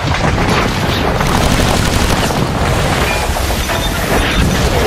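Battle sound effects: dense rapid gunfire mixed with booming explosions.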